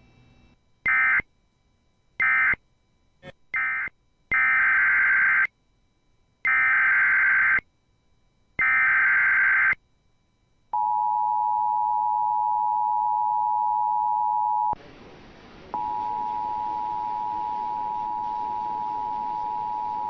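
Emergency Alert System tones. Three short screeching digital data bursts are followed by three longer SAME header bursts about a second apart. Then comes the steady two-tone attention signal that marks the start of a new tornado warning; it drops out for about a second partway through and then continues.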